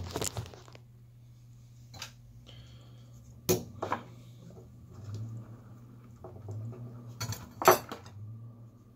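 Metal clinks and knocks from a helping-hands soldering clamp, its jointed arms and alligator clips being shifted as the circuit board it holds is flipped around. There are a few separate knocks, the loudest near the end, over a low steady hum.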